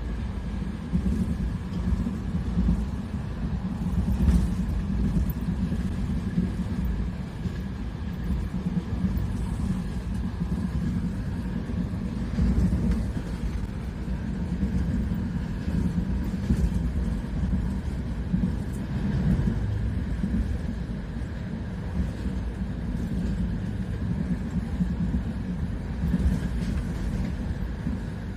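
Steady low rumble of a moving passenger train carriage running along the track, heard from inside the carriage.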